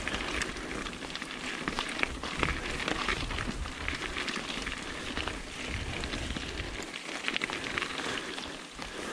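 Mountain bike tyres rolling over a wet, stony gravel trail: a constant patter of small stone crunches and clicks, with a low rumble underneath.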